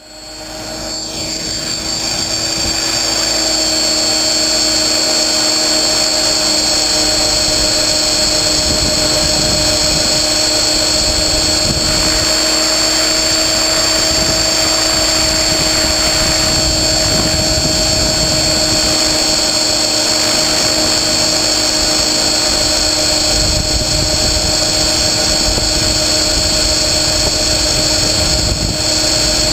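Align T-Rex 550E electric RC helicopter's brushless motor and rotors, heard from a camera mounted on the helicopter. The sound rises over the first two or three seconds as the rotor spools up, then runs steadily with a high whine through lift-off and climb.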